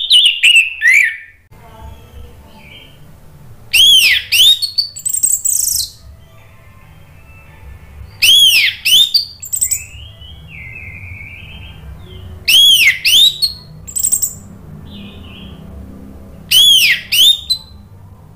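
Orange-headed thrush singing a loud, full song in short phrases of arching whistled notes, a new phrase about every four seconds.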